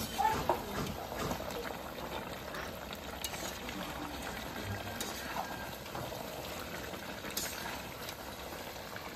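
Chicken and potato curry simmering in a metal kadai on a gas burner: a steady bubbling hiss, with a few light clinks and scrapes of a metal spatula against the pan.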